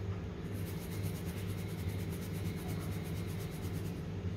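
Freshly ground rice flour being sifted through a fine steel flour sieve, shaken with a quick, rhythmic, soft rustle, over a steady low hum.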